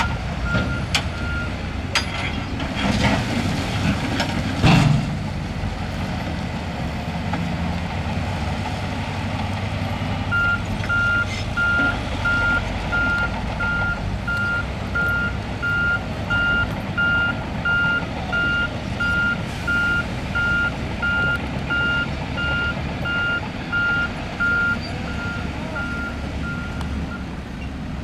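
A heavy construction machine's reversing alarm beeping steadily, about one and a half beeps a second, over its running diesel engine. The alarm is heard at the very start and again from about ten seconds in until near the end. A few sharp metallic clanks come between about two and five seconds in, as rock or a bucket is knocked about.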